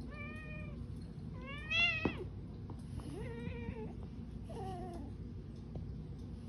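Domestic cat meowing four times, about one call every second and a half, the second call rising and the loudest, the last one falling: a cat asking to be petted.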